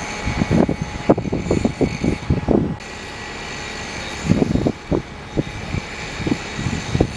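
A vehicle engine droning steadily, with irregular gusts of wind buffeting the microphone.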